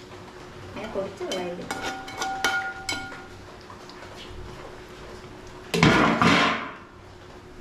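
Metal utensils clinking against a metal cooking pot several times, with the pot ringing briefly after the strikes. A short, loud rush of noise follows near the end.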